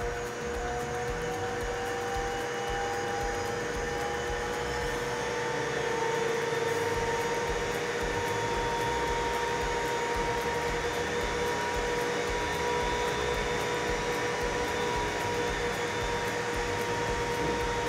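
Vacuum blower pulling air from a window test pressure chamber, running with a steady whine; one tone rises in pitch over the first several seconds, then holds, as the system is brought to the pressure that simulates 34 mph wind gusts.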